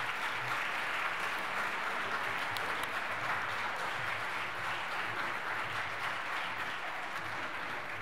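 A large audience applauding, a steady dense clapping that eases off a little toward the end.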